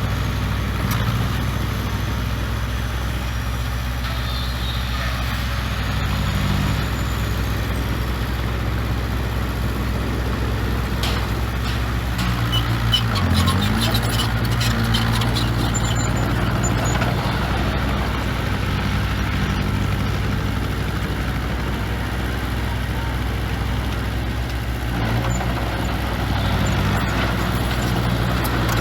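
Heavy diesel engine of earthmoving equipment running steadily. About halfway through, its pitch dips briefly and comes back up, and scattered clanks and rattles sound over it.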